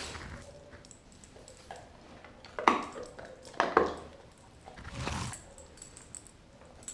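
Doberman gnawing a raw beef tail bone, with sharp cracks of teeth on bone about two and a half and three and a half seconds in and a duller sound about five seconds in.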